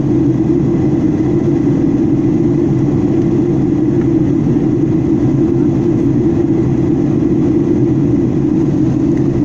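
Steady cabin noise of a jet airliner in flight, heard from a window seat: an even, unchanging mix of engine and airflow noise, strongest in the low range.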